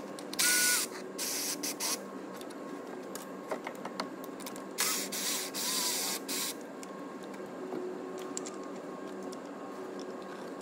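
Cordless power tool running in short bursts, undoing the bolts of a Toyota Hilux 2KD-FTV engine's timing belt tensioner: a brief burst about half a second in, another a second later, and a longer one around the middle.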